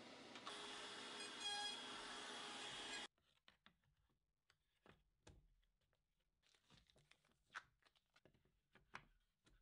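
Near silence: a faint steady hiss cuts off abruptly about three seconds in, then faint scattered clicks and taps as a plastic foil track box and a wooden block are handled.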